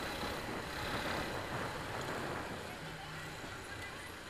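Steady riding noise of a Suzuki GS150R motorcycle moving slowly in city traffic, heard through a mic on the rider's helmet: the single-cylinder engine running under a wash of wind and road noise.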